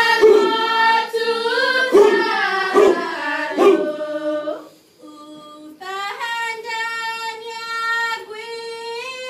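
Group of women chanting a Chamorro chant in unison, unaccompanied, with sharp hits on the beat through the first half. After a short break about halfway, they hold one long, steady note.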